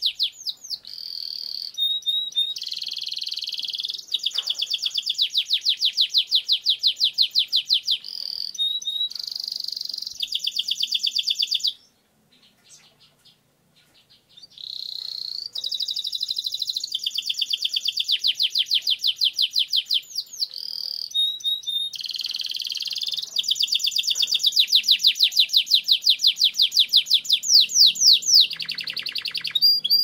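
Domestic canary singing a long rolling song: runs of rapid repeated high notes, one trill giving way to the next every few seconds. The song breaks off for about two seconds around twelve seconds in, then resumes.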